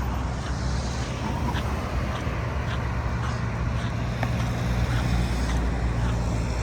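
Steady low engine hum with road noise from a running motor vehicle.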